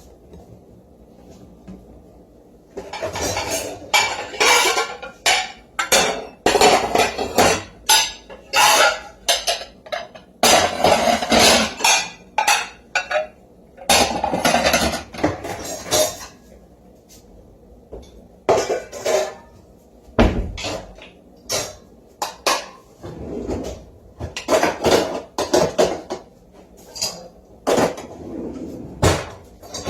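Dishes, pots and cutlery clattering and clinking in a long run of irregular bursts, starting about three seconds in.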